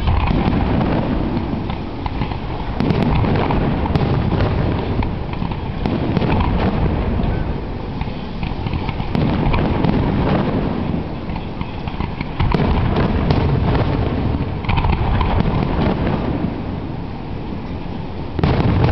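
Aerial fireworks display: shells bursting with deep booms and crackling, a new loud burst every two to four seconds.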